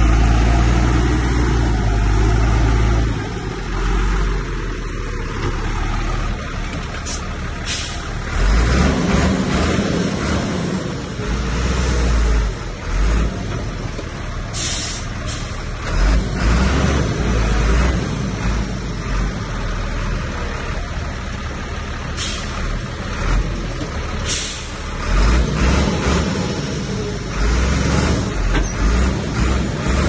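Heavy diesel earthmoving machinery working, its engine rumbling and swelling under changing load. Several short, sharp hissing bursts cut through it over the span.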